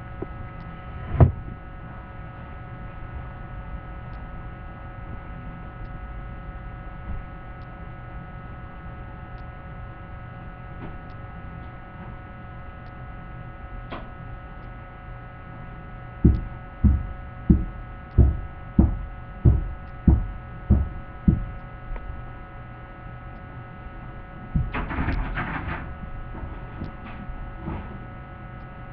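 Steady electrical hum, with a single dull thump about a second in, then a run of about nine dull thumps a little over half a second apart in the middle, and a short rustle near the end.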